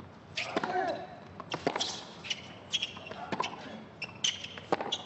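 Tennis rally on a hard court: sharp racket-on-ball strikes and ball bounces about once a second, with short high squeaks between them.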